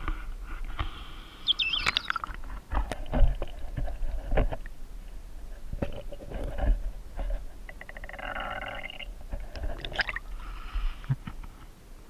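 Handling noise from a handheld phone camera being moved about: irregular knocks, clicks and scraping rustles over a steady low rumble.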